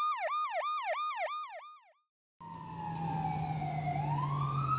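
Ambulance siren in a fast yelp, about four rise-and-fall cycles a second, fading out about two seconds in. After a brief silence, a fire engine siren starts with a slow wail that falls and then rises, over a low engine rumble.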